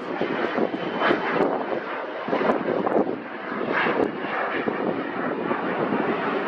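Fixed-wing aircraft engine noise, a broad rough rushing sound that swells and eases every second or so.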